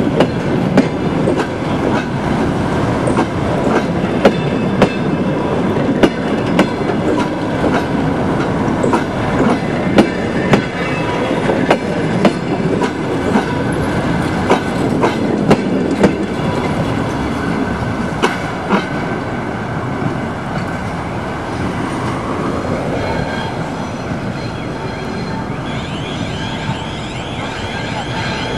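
Passenger coaches rolling slowly past, their wheels clicking and knocking over rail joints at irregular intervals under a steady rumble, growing quieter over the last several seconds as the end of the train moves away.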